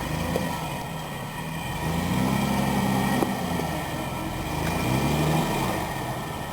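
1991 Nissan D21 Hardbody pickup's V6 engine pulling at low speed in low gear, its note rising and easing off twice as the throttle is worked. A single knock about three seconds in.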